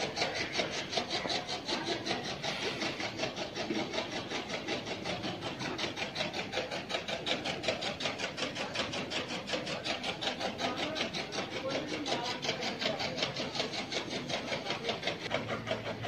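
A machine running with a rapid, even pulsing beat, about five pulses a second, holding steady throughout.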